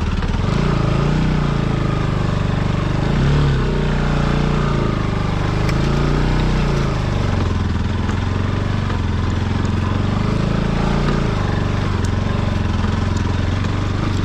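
Bajaj Pulsar NS 200 motorcycle's single-cylinder engine running while ridden off-road, its pitch rising and falling several times as the throttle is opened and closed.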